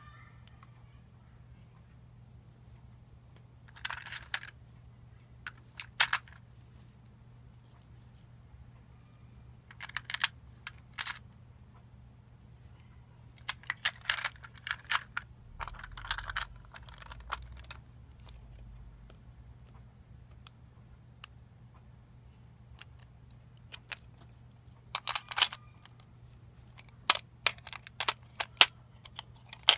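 Short clusters of clinks and rattles from small hard parts being handled, coming every few seconds, over a faint steady low hum.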